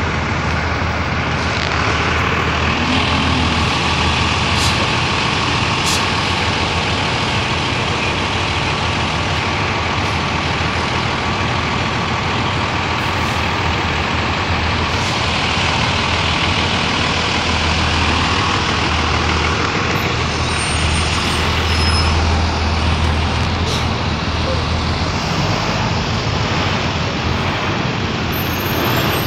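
Diesel engines of several school buses running, a steady deep hum from the bus parked alongside, as the buses pull out of the loop.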